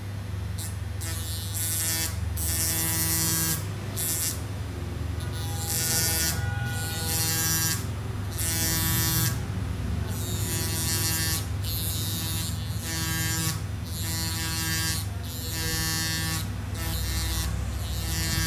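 Small hand-held electric rotary grinding tool running against a smartphone's body, whining in repeated bursts about a second long as it bites, over a steady motor hum.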